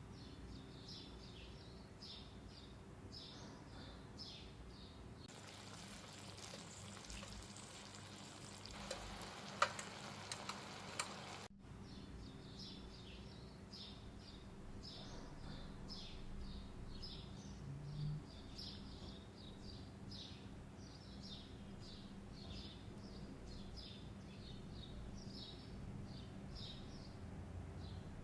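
Faint, repeated high bird chirps. From about five seconds in, food sizzles and crackles in a pan with a few sharp pops, and this cuts off suddenly about eleven seconds in.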